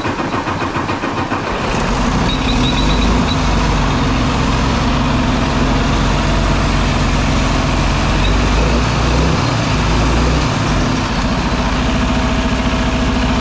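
Detroit DD15 inline-six diesel in a Freightliner Cascadia cranking and catching about two seconds in, then running steadily at idle. This is the first start after the fuel filters and fuel-water separator were changed, when the fuel system has to prime before it fires.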